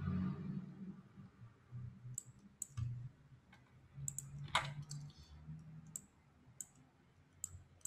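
Scattered sharp clicks of a computer mouse and keyboard, about nine in all, the loudest about halfway through, over a faint low hum.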